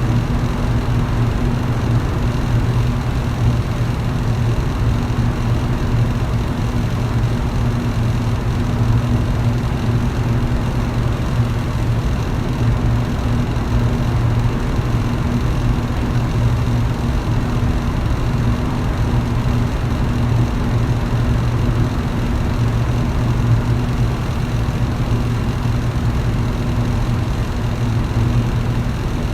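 Electric fan running steadily: a low motor hum under an even rush of moving air, unchanging throughout.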